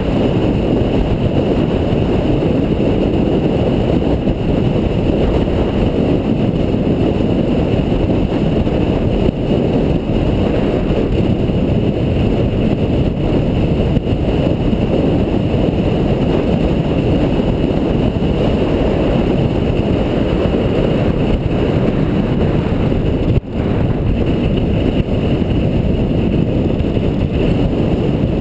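A car driving along a winding road, heard from an on-board camera: a steady, loud rumble of engine, tyres and wind on the microphone. There is a brief dip in level about 23 seconds in.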